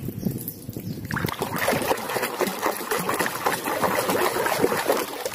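Water sloshing and splashing in a plastic basin as a hand scrubs a toy under the water. It starts about a second in and goes on irregularly until near the end.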